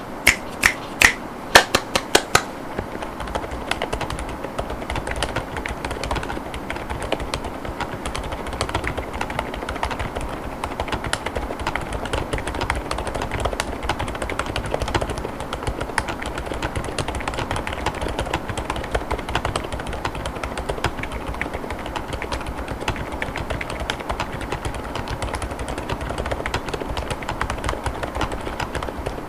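Continuous fast typing on an Epomaker RT100 mechanical keyboard with Outemu Silent Lemon V3 silent tactile switches and polycarbonate keycaps: a dense, even patter of damped keystrokes. In the first couple of seconds about half a dozen louder, sharp clicks stand out.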